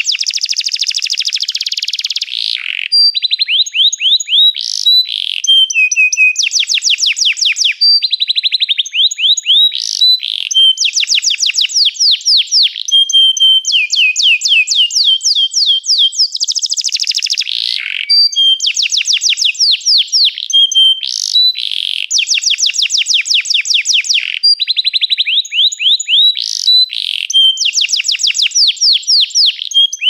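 Domestic canary singing continuously: long rolling trills of rapidly repeated high notes, switching to a new trill every second or two.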